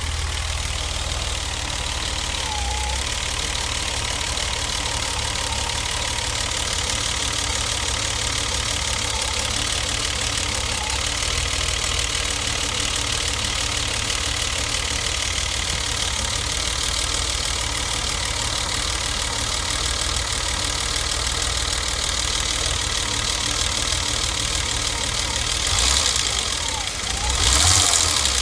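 BMW M20B20 two-litre straight-six idling steadily after a cylinder-head repair, with two brief louder surges near the end. The idle is one the mechanic finds uneven at times, which he traces to an air leak.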